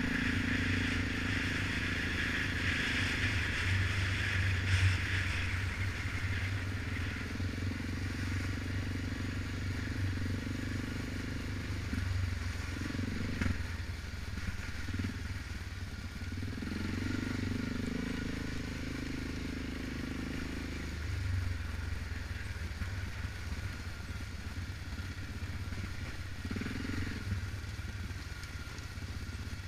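ATV engine running under way on a rough trail, its note dipping and rising with the throttle a few times, around the middle and near the end.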